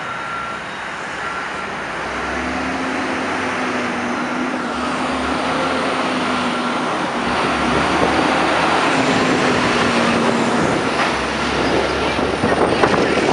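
Street traffic with a Sterling garbage truck's diesel engine approaching in a line of cars, growing louder as it nears, then passing close with a few sharp clanks from its body near the end.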